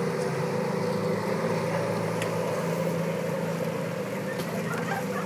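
Several bumper boats' small motors running together in a steady, even drone.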